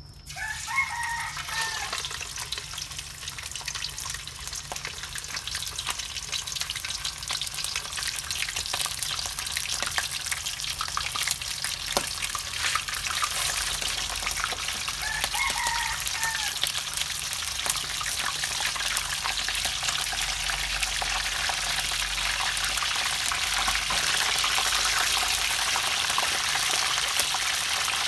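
Pieces of frog frying in hot oil, skin-side down: a dense crackling sizzle that starts as they go in and slowly builds. A chicken calls briefly twice in the background, about a second in and again halfway through.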